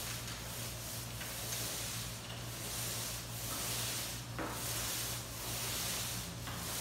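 Paint roller on an extension pole rolling wet epoxy across a concrete garage floor: a swishing rub that swells with each back-and-forth stroke, about one stroke a second.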